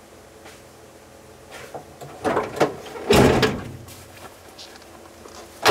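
Gear being loaded into a vehicle: a few knocks and clatter about two seconds in, a heavier thud a little after three seconds, and another knock near the end.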